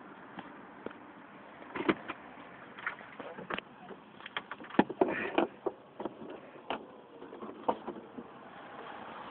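A run of sharp clicks and knocks from handling inside a car, over a steady hum in the cabin.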